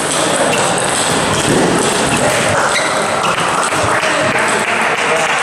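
Table tennis ball clicking off bats and table during a rally, over the steady din of a large hall with other matches and people talking.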